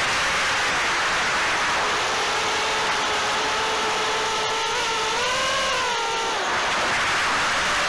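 Four 2207 2500 kV brushless motors and props of a 6-inch FPV quadcopter in flight, heard through the onboard Caddx Turtle V2 camera's microphone, which makes them harsh and tinny: a whine of several stacked tones over a rush of prop wash. The pitch swings up and down with the throttle about two-thirds of the way through, then dips briefly.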